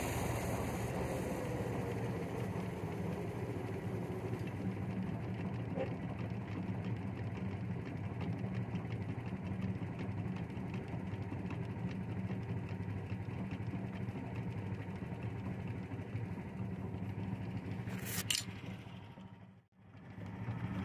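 18 horsepower Duromax 440 engine on a repowered Farmall H running steadily under load, driving a bush hog rotary cutter through pasture grass. Near the end there is a short louder noise, then the sound cuts off.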